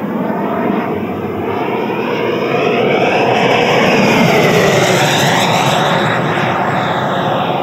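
Electric ducted-fan jet model (TOPRC Odyssey with a JETFAN-120 PRO fan and HET Typhoon motor on 12S) making a low pass. The fan's whine and rushing air swell to their loudest about four seconds in as it flies by, and its tones sweep down in pitch as it goes away.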